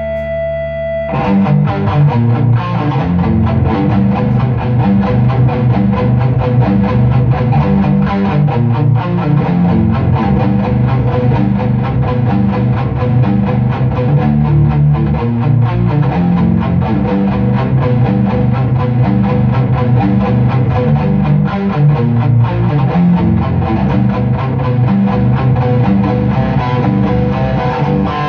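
Electric guitar: a held ringing note for about a second, then fast, continuous picked riffs with heavy low notes.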